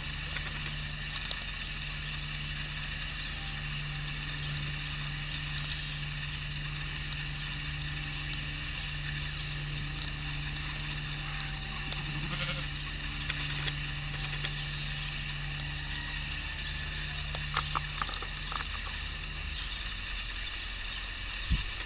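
Sheep bleating a few times, around the middle and again near the end, over a steady low hum that fades out near the end.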